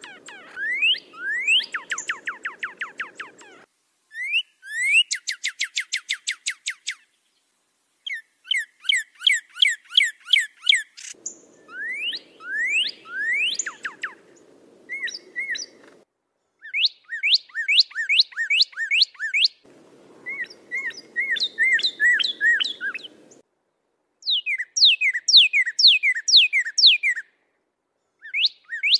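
Recorded songbird song spliced into a looped training track: bursts of two to four seconds of fast repeated whistled slurs and trills, separated by short silences, some bursts carrying a low background hiss.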